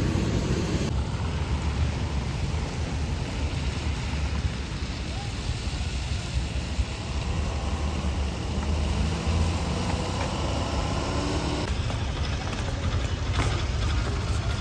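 Car engine and road noise, a steady low rumble.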